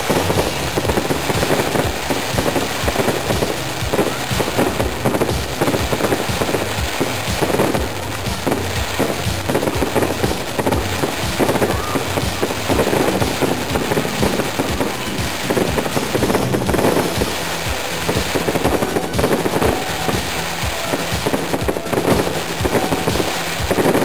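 Aerial fireworks display: a dense, unbroken crackle of many shells and crackling stars bursting in quick succession, with frequent pops and bangs mixed in.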